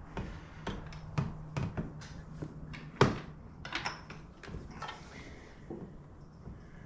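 Hard motorcycle saddlebag being worked back into place on a Harley-Davidson Road Glide: a series of hard plastic clicks and knocks, the loudest a sharp knock about three seconds in, then a few quicker clicks before it goes quieter.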